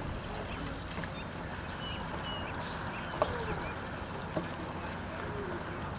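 Steady low rumble of a boat out on the water, with scattered short chirps and light clicks, and one sharp click about three seconds in.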